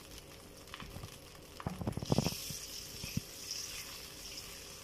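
Teriyaki sauce of soy sauce, water, sugar and vinegar bubbling and sizzling in a hot pan, with a few short knocks about two seconds in, after which the sizzling hiss grows louder.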